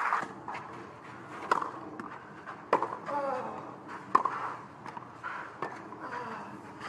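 Faint crowd murmur at a tennis court between points, with four sharp knocks about a second and a half apart.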